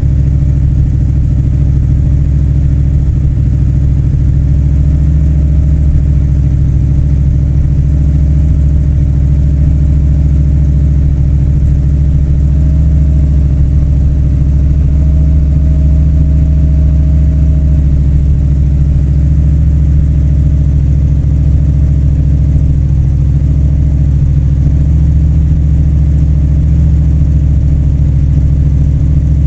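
1971 Plymouth 'Cuda engine idling steadily with a low rumble after a cold start.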